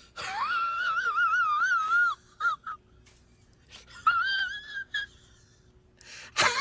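A high, wavering, whining vocal call in several drawn-out bouts. The first bout lasts about two seconds; there are two short ones, a second longer one about four seconds in, and another starting just at the end.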